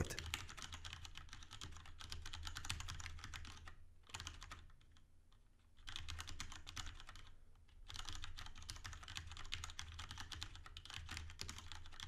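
Typing on a Cherry MX Board 6.0 mechanical keyboard with Cherry MX Red linear switches: rapid, quiet key clicks. The typing stops for about two seconds around four seconds in, then resumes.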